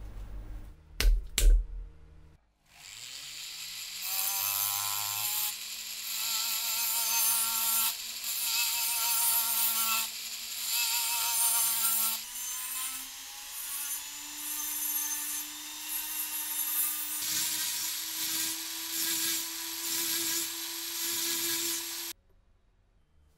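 Handheld rotary tool spinning up about two and a half seconds in, then sanding rust from the inside of an axe head's eye with a sanding drum and a small abrasive wheel. Its steady whine runs under a grinding noise that swells and eases as the bit is pressed to the metal, and the whine steps up in pitch about halfway through. It cuts off suddenly near the end. Two sharp knocks come about a second in, before the tool starts.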